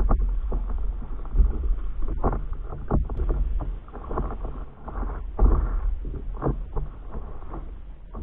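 Water splashing and sloshing against the nose of a stand-up paddleboard as it is paddled, in irregular surges with a few louder splashes, over a low rumble of wind on the microphone.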